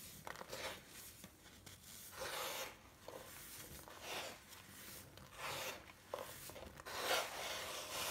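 Hands pressing and squeezing into a heap of crumbled baking soda, making a crumbling, rubbing crunch of the powder in several separate strokes. The loudest stroke comes about seven seconds in.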